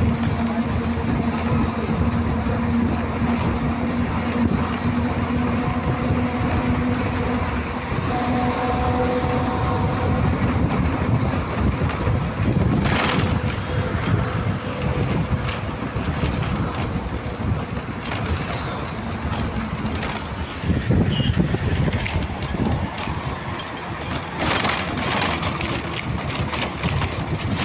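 Road and wind noise from a vehicle driving along a highway, with a steady rumble and the sound of traffic going by. A humming tone runs through the first third, and a brief louder whoosh comes about halfway through as a bus passes close by.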